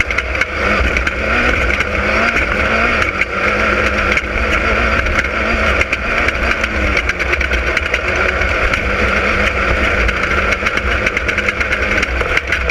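Class 10 off-road race car's engine running hard at fairly steady revs, the pitch wavering a little, with many small knocks and rattles throughout as the car runs over rough ground.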